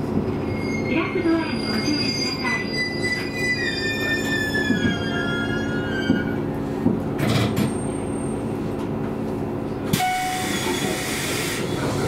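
KiHa 220 diesel railcar braking to a stop, its brakes squealing in a tone that slides down in pitch over the first six seconds, over the steady hum of the running diesel engine. About ten seconds in comes a sudden short hiss.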